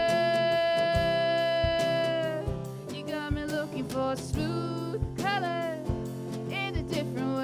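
Live pop song: a singer holds one long note for about two seconds, then sings short gliding phrases over a band with a steady beat.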